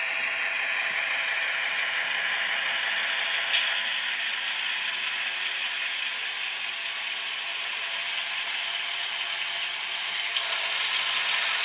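Jouef Hornby BB 66000 HO-scale model diesel locomotive running on the layout, its Miniatures Passion sound decoder playing a diesel engine sound through the on-board speaker, mixed with the mechanical noise of the model's motor and wheels on the track. A sharp click sounds about three and a half seconds in.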